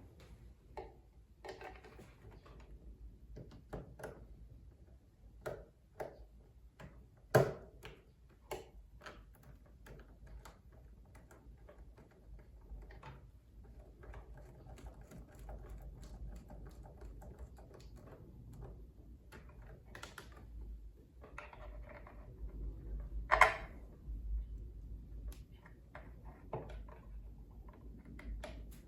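Hands handling wire and small tools on an electrical wiring board: scattered light clicks and taps at irregular intervals, with two sharper, louder clicks about seven seconds in and again about twenty-three seconds in.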